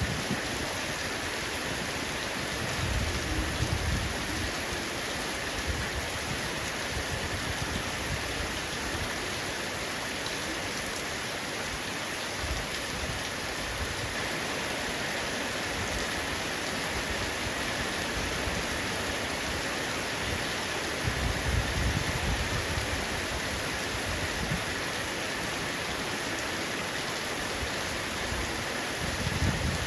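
Heavy rain drumming steadily on a roof, an even hiss of many raindrops. A low rumble swells up a few times beneath it.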